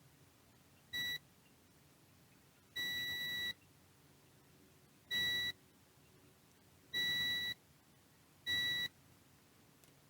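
Multimeter continuity beeper sounding five times as the probes are touched to the soldered points, each beep a steady high tone of a different length, from very short to nearly a second. Each beep signals continuity: the probed connection is closed.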